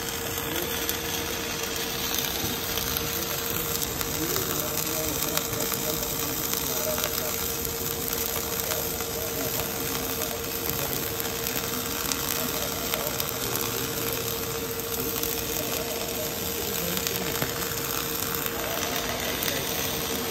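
Wire-fed MIG/MAG welding arc crackling and sputtering steadily as an automatic orbital carriage runs a weld bead around a steel pipe, with a steady hum underneath.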